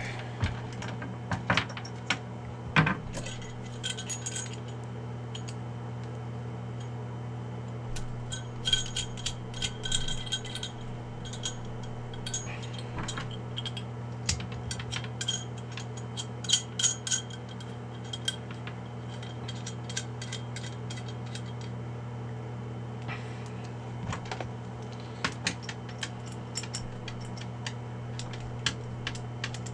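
Small metal coax connectors and a compact metal diplexer clicking and clinking as they are handled and screwed together, in scattered light taps over a steady low hum.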